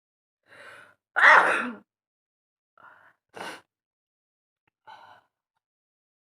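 A woman sneezes loudly about a second in, just after a short gasping breath in. The sneeze is set off by a twisted paper tip poked into her nostril. Shorter, softer breathy blasts follow at about three seconds and three and a half seconds in, and a faint one near the end.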